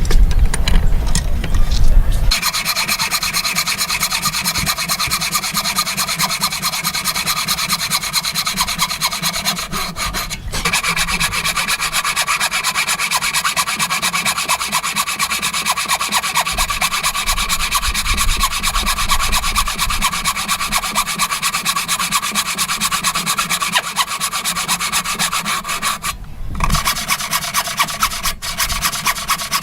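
A hand tool working wood in rapid, continuous back-and-forth strokes, scraping and rasping, with a steady metallic ring over the strokes. The strokes stop briefly twice, about ten seconds in and near the end.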